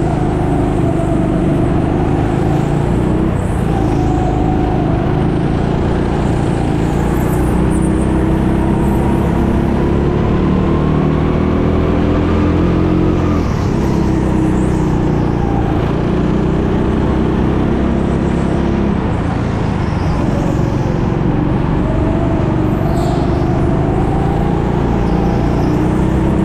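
Go-kart engine running hard through a lap, its pitch climbing on the straights and dropping several times as the throttle is lifted for corners.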